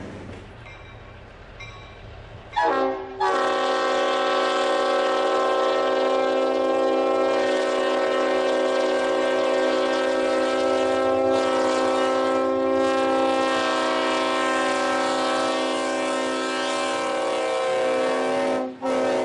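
Air horn of an EMD SW1200 switcher locomotive blowing: a short blast about two and a half seconds in, then one long, loud, steady blast lasting some fifteen seconds, broken briefly just before a last short blast near the end. Before the horn there is only a faint low rumble.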